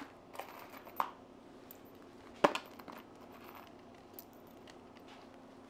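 A small box of screws being handled and opened by hand: a few faint clicks and rattles, with one sharper click about two and a half seconds in.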